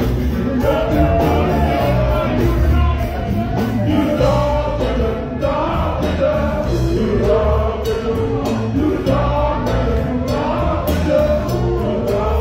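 A live funk band plays to a heavy, steady bass beat while several singers sing together through the PA.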